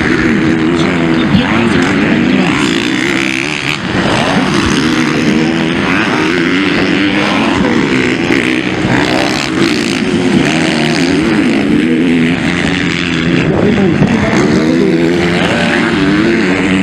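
Motocross bike engines revving up and down as the bikes race round the track, their pitch rising and falling continuously.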